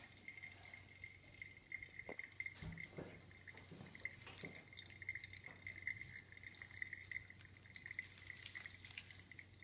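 Faint, irregular dripping of coffee through the paper filter into the Chemex's glass carafe as the first pour drains through the grounds, over a faint steady high-pitched tone.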